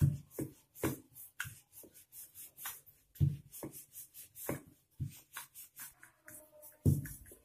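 Wooden rolling pin rolling out dough on a marble board, knocking against the stone with uneven thuds about twice a second.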